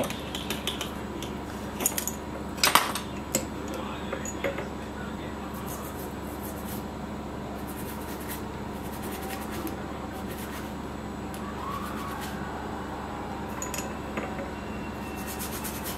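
Light clicks and clinks of small tools at a phone-repair bench while a corroded, water-damaged phone board is washed with cleaning liquid. The loudest clink comes about three seconds in, and a few fainter ones are scattered through, over a steady low hum.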